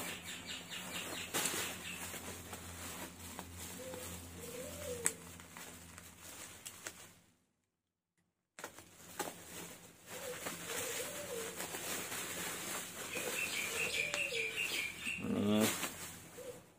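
Plastic bubble wrap crinkling as wrapped parts are handled and unpacked, while a dove coos about six times in the background. The sound cuts out for about a second near the middle.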